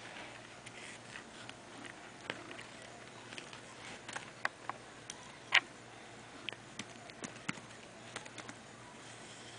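Yorkshire terrier puppy gnawing a rawhide chew: irregular sharp clicks and crunches of teeth on the rawhide, with one louder click a little past halfway.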